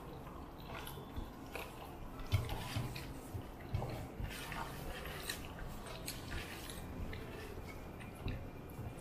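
Close-up eating sounds: chewing and mouth smacks, with the wet squish of rice and curry being mixed by hand on steel plates, coming as irregular soft clicks and smacks.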